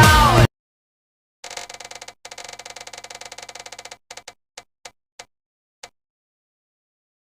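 A rapid run of sharp clicks, about a dozen a second, that slows into a few separate clicks spaced further and further apart and then stops, like something spinning down to rest.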